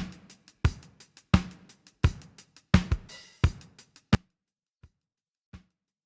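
Recorded drum kit playing a steady beat, with kick and snare hits about every 0.7 s and cymbal wash between them; just over four seconds in the full kit drops out, leaving only a few faint, sparse hits.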